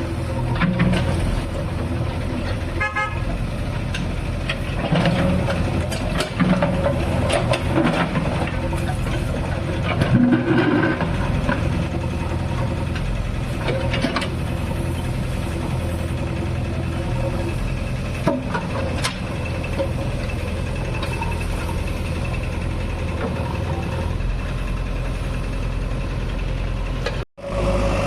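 JCB 3DX backhoe loader's diesel engine running steadily while it works, with scattered knocks and clanks and a brief tone, like a horn, about ten seconds in. The sound cuts out abruptly near the end.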